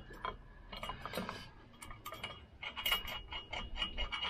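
Small metal clicks and clinks as a bolt is fitted by hand, then a hand ratchet wrench clicking in a quick even run, about five clicks a second, as the bolt is run down.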